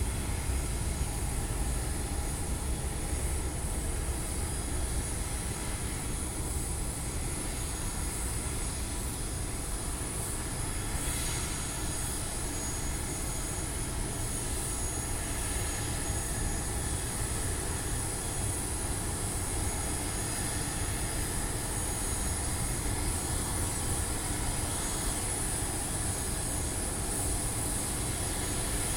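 Steady noise from parked jet aircraft on an airport apron: a constant high whine over a low rumble, with no change in pitch.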